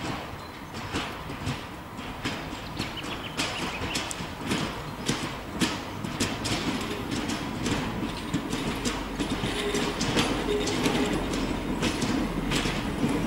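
280 hp Walker diesel railmotor 91RM approaching, its wheels clicking over the rail joints and its engine rumble growing louder as it nears.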